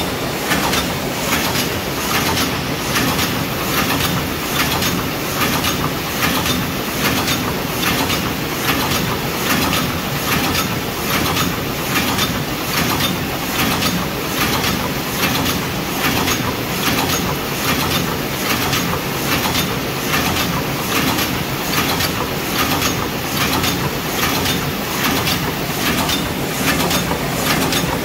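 Paper cup forming machine with a hot-air sealing unit running in production, its mechanism giving a loud, steady, rapid rhythmic clatter of repeated strokes.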